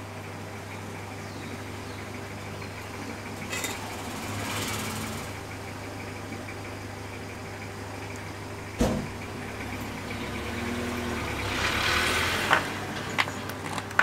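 Steady background hum with light handling noise: a sharp knock about two-thirds of the way through, then several small clicks near the end as a phone display and its flex cable are handled on a work mat.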